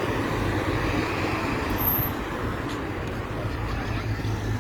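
Steady outdoor background noise with a low rumble, like street ambience or wind on a phone microphone.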